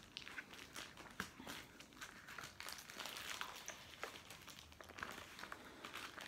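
Foil bag crinkling as it is handled and pulled open, a quick irregular crackle.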